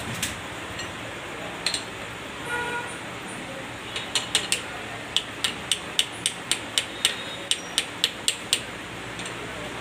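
A run of sharp clicks, about four a second, over steady mechanical background noise, with a couple of single clicks before it.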